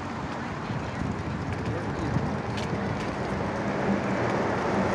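Steady outdoor traffic noise with a city bus engine running near the tunnel mouth, growing slowly louder, with wind on the microphone.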